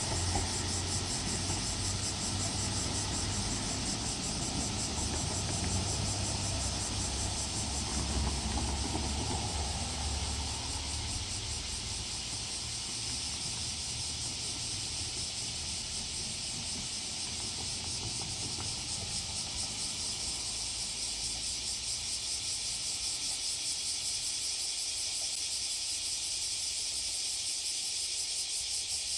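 A diesel railcar's engine rumbles low and fades away over the first ten seconds or so, under a steady high-pitched buzz of cicadas.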